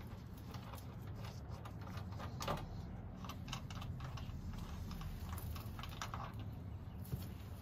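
Irregular light clicks and taps from small hand work, over a steady low hum.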